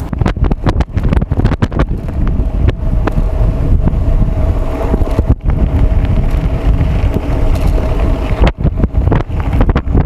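Wind buffeting the microphone while a mountain bike rolls fast over a rough dirt road, with frequent knocks and rattles from the bike and tyres on the bumpy surface.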